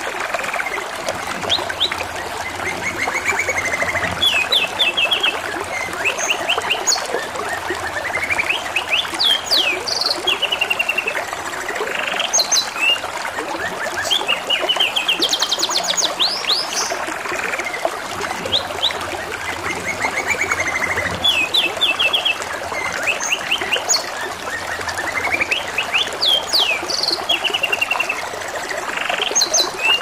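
Domestic canary singing, phrase after phrase of fast trilled and chirping notes, over a steady trickle of running water.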